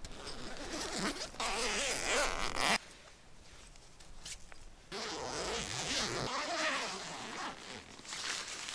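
Tent door zipper being unzipped from inside a Snugpak Ionosphere tent: two long zipper pulls, one about a second and a half in and another about five seconds in.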